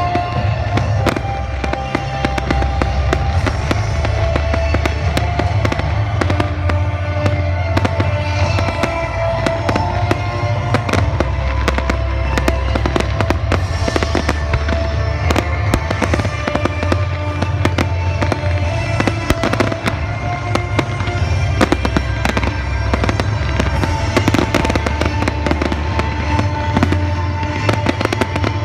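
Fireworks display: a continuous run of sharp bangs and crackles from bursting aerial shells. Loud music plays underneath the whole time.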